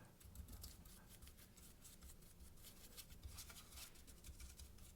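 Faint soapy scrubbing on a wooden cuckoo clock case: many quick, irregular scratchy strokes.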